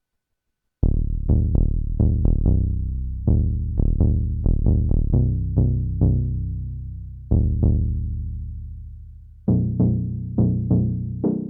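Behringer Crave analog synthesizer playing a sequenced bass line of short, plucky notes in an uneven rhythm, each bright at the attack and dulling as it fades. It starts about a second in, and near the end the notes turn brighter and buzzier.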